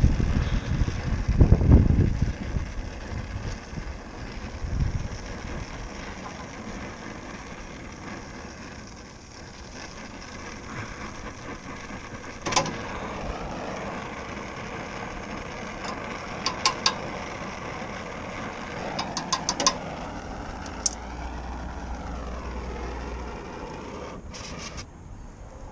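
Steady outdoor background of vehicle traffic, with a low rumble in the first couple of seconds and a few scattered sharp clicks in the middle.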